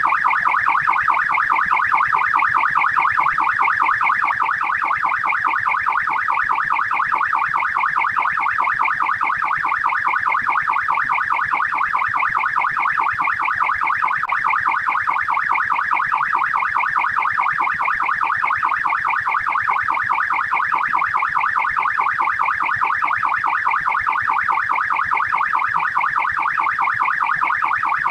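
Australian police electronic siren on the fast yelp setting: a rapid, evenly repeating rise and fall in pitch, several sweeps a second, running steadily.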